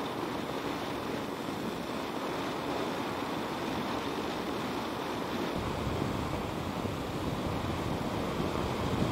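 Steady rush of wind and road noise on the microphone of a moving motorcycle, with no clear engine note. A deeper, louder low rumble comes in about five and a half seconds in.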